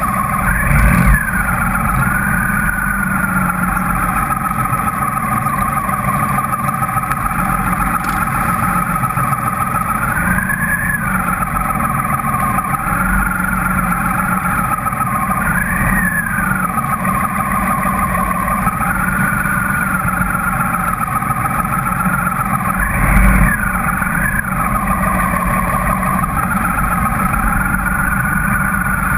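Motorcycle engines running at low speed in a slow-moving pack of motorcycles and scooters, a steady low rumble with a wavering whine over it. Two short louder surges, about a second in and again about three-quarters through, sound like engines being revved briefly.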